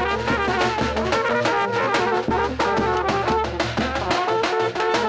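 Brass band playing a tune: flugelhorn-type horns and tenor horns carry the melody over a steady drum beat.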